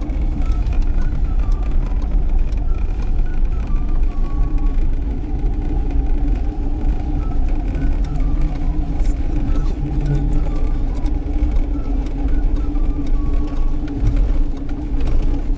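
Steady low rumble of a car driving, engine and road noise.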